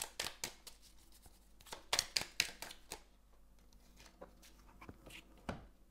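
Tarot cards being handled and drawn from the deck: a few clusters of short clicks and soft slaps of card on card and on the table.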